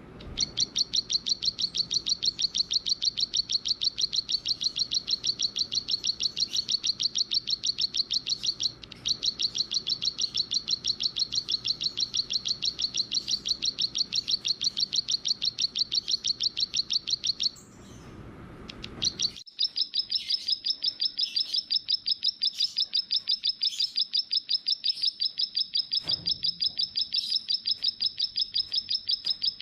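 A small songbird's rapid, evenly repeated high chirps, a fast steady series of many notes a second. It breaks off briefly about two-thirds of the way through, then starts again slightly higher.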